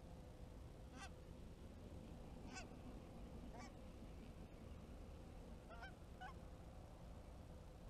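Distant flock of geese flying overhead, giving about five faint, scattered honks over a low steady rumble.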